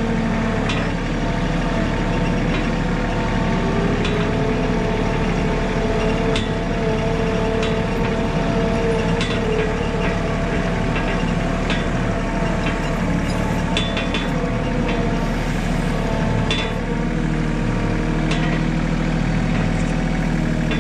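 Compact tractor's engine running steadily as it is driven along, with occasional short clanks and rattles.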